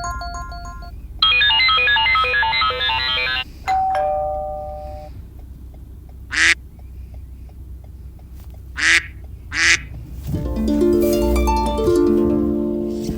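Phone ringtones and alert tones played one after another. First a fast run of electronic beeps, then a held two-note tone, then three short sharp sounds a couple of seconds apart, and near the end a melodic ringtone.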